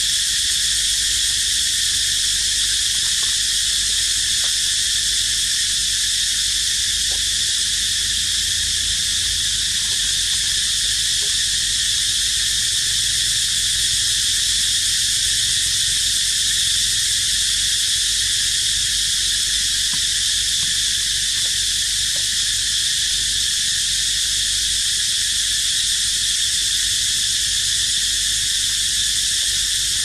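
A loud chorus of cicadas buzzing in one steady, unbroken high-pitched drone.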